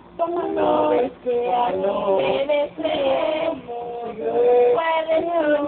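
A voice singing a melody, holding notes and sliding between them, with short breaks between phrases.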